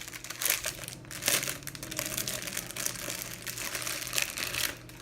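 Sock packaging being handled and opened, crinkling in quick irregular crackles that ease off just before the end.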